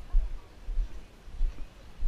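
Low dull thuds about every half second, in a walking rhythm: footsteps jolting the recording device as its wearer walks, with faint voices of a crowd behind.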